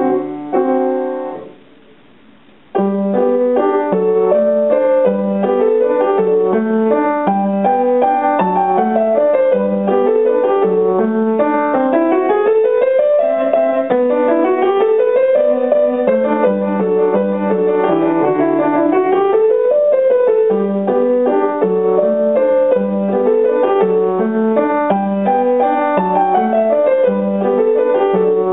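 Upright acoustic piano played solo at a lively pace. A chord sounds and dies away in the first two seconds, and after a pause of about a second the playing resumes with quick scale runs rising and falling over evenly repeated bass notes.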